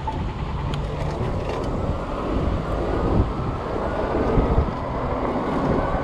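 20-inch 48-volt fat-tire e-bike pulling away from a stop, with wind rushing over the microphone. A faint whine rises slowly in pitch as the bike picks up speed.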